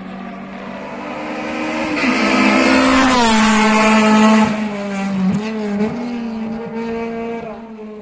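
Honda Civic hillclimb car's K20 2.0-litre four-cylinder engine at high revs, growing louder as the car climbs toward and past, its note dropping in steps about two to three seconds in, then fading as it pulls away.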